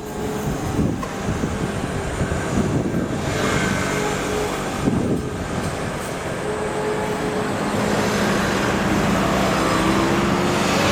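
Road traffic: cars passing with a steady engine and tyre noise, one vehicle growing louder in the last few seconds.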